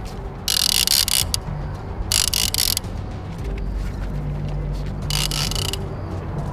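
Big two-speed conventional fishing reel's drag buzzing in three short bursts, a little under a second each, as a hooked shark pulls line off against the bent rod.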